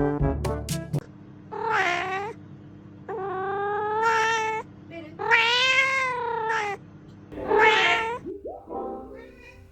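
A cat meowing: four long meows, each rising then falling in pitch, and a fainter fifth near the end. Music ends about a second in.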